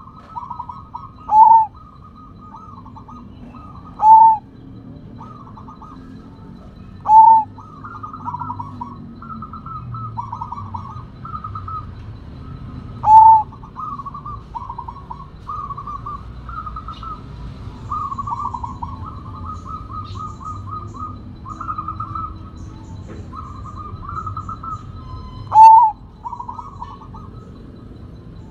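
Zebra dove (perkutut) of the Sumbawa type cooing. Five loud, clear coo notes come a few seconds apart, and a long run of softer, quick, stuttering coo notes fills the gaps between them.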